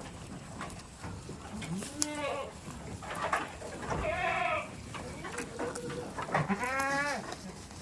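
Goats bleating: three wavering calls about two seconds apart, with scattered small knocks and rustles behind them.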